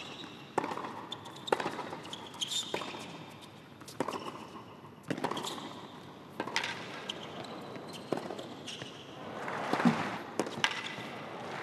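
Tennis rally on a hard court: the ball is struck by racquets about every second, with bounces between hits. Noise from the spectators swells near the end.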